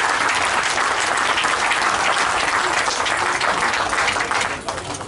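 A crowd applauding, with many hands clapping together. The applause dies away near the end.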